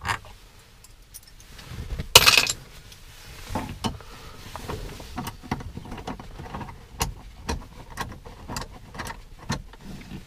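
Metal hand tools, a screwdriver and pliers, clicking and scraping on a dashboard screw and the plastic dash trim as the screw is worked out. Small irregular clicks throughout, with one louder rattle about two seconds in.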